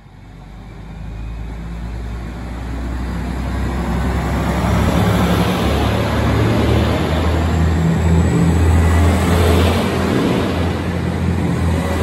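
KiHa 283 series diesel express train pulling out and running past close by: its underfloor diesel engines rumble under load while the noise of the cars builds over the first five seconds and then holds loud and steady.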